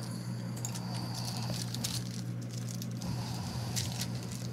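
Foil trading-card pack wrapper crinkling and tearing as a pack is ripped open by hand, with scattered sharp crackles, over a steady low electrical hum.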